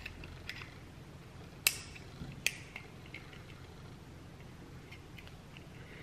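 Small plastic clicks and taps from a plastic pick prying around the trim of a BMW start button. The two loudest clicks come about two seconds in, a little under a second apart.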